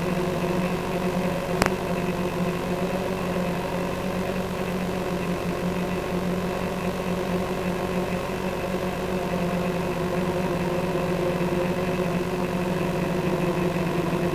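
Multirotor drone's electric motors and propellers humming steadily while it holds a hover in loiter mode, with one sharp click about a second and a half in.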